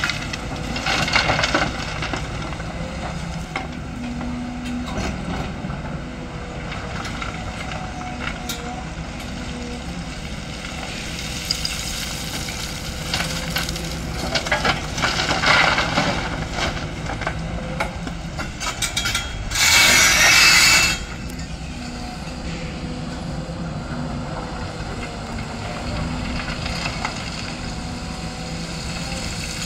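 Sany crawler excavator's diesel engine running steadily while its bucket drops loads of soil and stone into a steel tipper body, the material pouring and rattling in several spells. The loudest is a sharp rushing burst of about a second and a half, some twenty seconds in.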